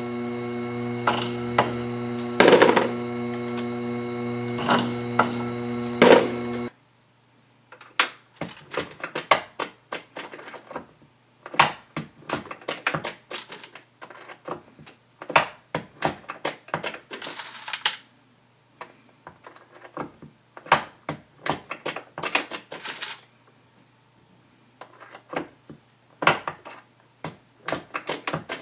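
A Henderson Precision powered case trimmer's motor runs with a steady hum, with a sharp clack every couple of seconds as a brass case is trimmed. After about six and a half seconds it gives way to a long run of light metallic clicks and clinks: brass cases being primed on an RCBS bench priming tool and set into a plastic loading block.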